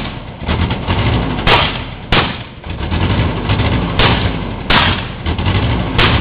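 Truck engine running hard while its wheels spin on grass and dirt, flinging debris, with several sharp knocks through the noise.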